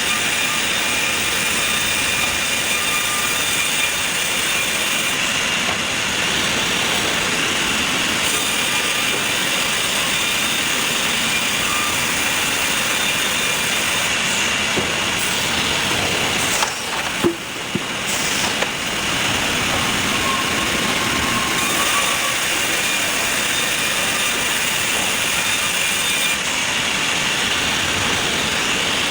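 Sawmill machinery running: a loud, steady, dense mechanical noise with faint high whining tones, briefly dropping away with a click about two-thirds of the way through.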